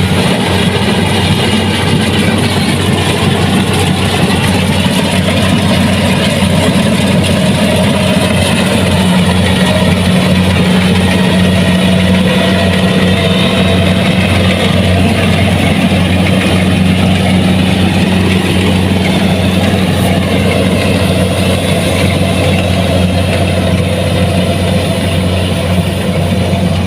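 Kubota DC-70 Plus combine harvester running steadily, a loud, even diesel drone with a low hum that does not change.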